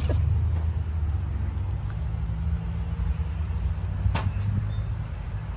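Low, steady rumble of a motor vehicle's engine running close by, with a single sharp click about four seconds in.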